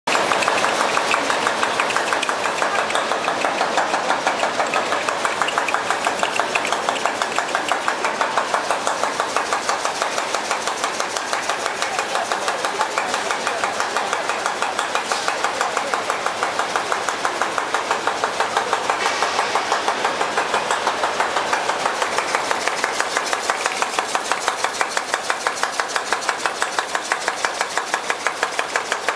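Rotary plastic cap molding machine running, with a rapid, even clatter of several beats a second as it cycles.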